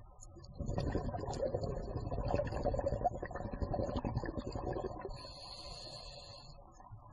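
Scuba breathing heard underwater: a burst of crackling, gurgling exhaled bubbles from the regulator lasts about four seconds. It is followed by a thin steady hiss as the diver breathes in.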